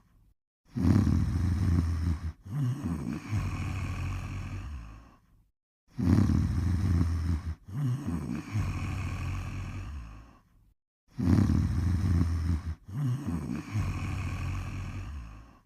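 Snoring: three snores about five seconds apart, each a loud low rumble that turns fluttery and then trails off more quietly, with short gaps of dead silence between them.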